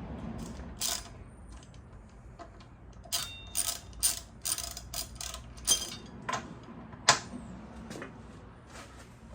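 Hand ratchet clicking in short runs, with a few separate sharp metal clicks, as bolts are tightened on a motorcycle wheel. The clicks are thickest about three to six seconds in.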